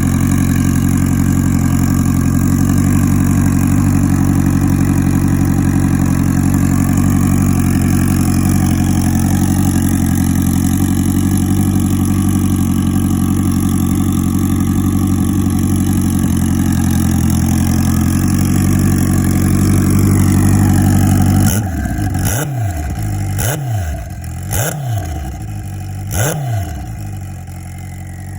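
Turbocharged Suzuki GSX1400 inline-four motorcycle engine running steadily, held at a raised idle. About three-quarters of the way through the revs drop back, and the throttle is blipped four times in quick succession, each rev rising and falling sharply.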